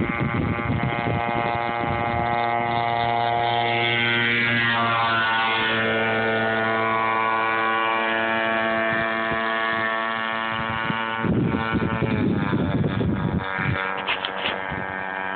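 Radio-controlled model boat's motor running with a steady buzzing whine, its pitch shifting a few seconds in. About eleven seconds in, a brief rumble comes in under it.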